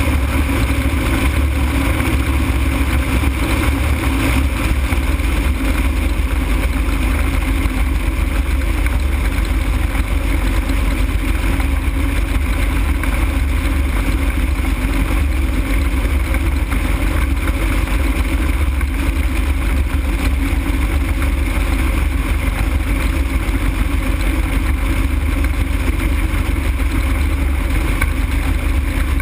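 Open-frame ultralight aircraft in flight: a loud, steady, unchanging drone with wind rushing over the airframe and camera.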